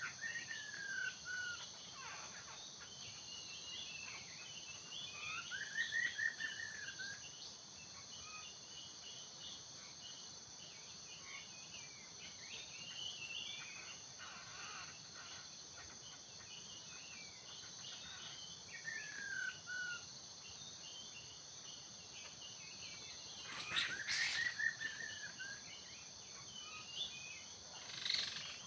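Laughingthrush song: a few clear whistled phrases that rise and fall, spaced several seconds apart, with a louder burst of calls near the end, over a steady high drone of insects.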